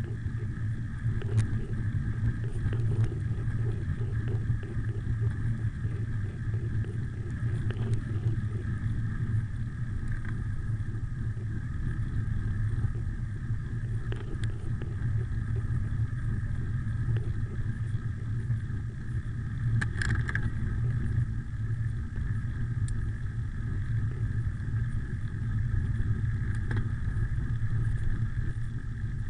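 Steady rumble of wind over the microphone and tyre noise from a bicycle rolling fast downhill on a forest road, with a few brief rattles from the bike.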